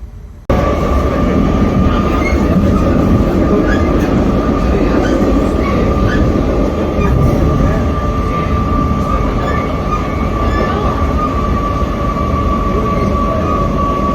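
Passenger train running, heard from inside the carriage: a loud, steady rumble with a high, steady whine held over it. It starts abruptly about half a second in.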